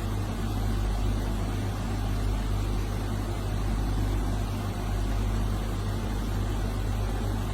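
A steady low droning hum under an even hiss. Nothing starts, stops or changes.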